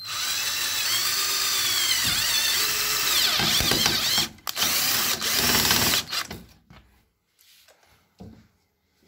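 Power drill driving a screw into a fly-screen frame bar. It runs for about four seconds with its pitch wavering under load, stops briefly, then runs again for under two seconds. Faint handling sounds follow.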